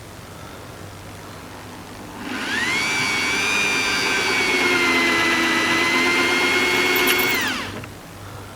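Electric drill boring out a very hard rivet head in a car body panel. The motor winds up with a rising whine about two seconds in, runs at a steady high pitch for about five seconds, then winds down near the end.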